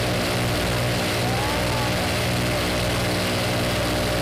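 The engines of a homemade two-rotor helicopter run steadily, spinning both rotors.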